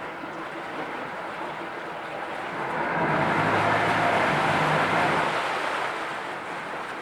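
Yamaha F115 four-cylinder four-stroke EFI outboard running in reverse with its propeller churning water. It is throttled up about two and a half seconds in, the rush of water and engine note growing louder, then eased back down near the end.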